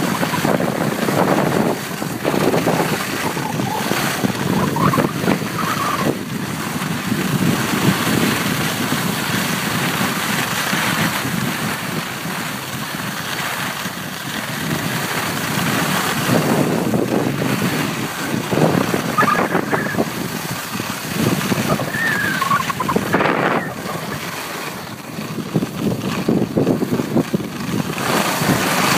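Wind rushing over the microphone of a skier moving downhill, mixed with skis sliding and scraping on packed snow; the noise swells and eases with speed.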